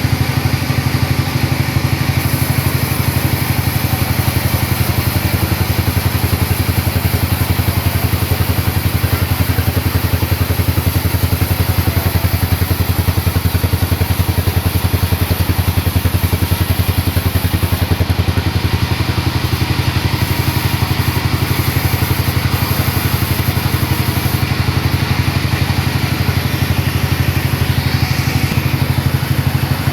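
Sawmill's engine running steadily at an even speed, a fast, regular low pulsing hum.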